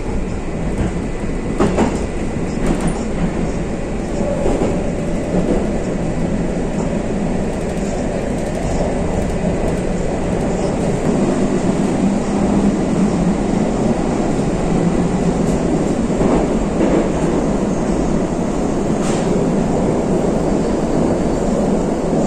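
Moskva-2020 metro train running between stations, heard from inside the car: a steady rumble of wheels on rails, with a few sharp clicks scattered through it and the noise growing slightly louder.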